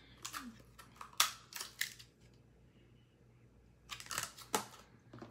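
Plastic Scentsy wax-bar clamshell packs clicking and rattling as they are handled. The sharp clicks come in two clusters, with a pause in between and the second cluster about four seconds in.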